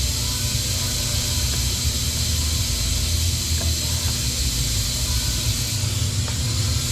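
Steady background noise: a fluctuating low rumble under an even high hiss.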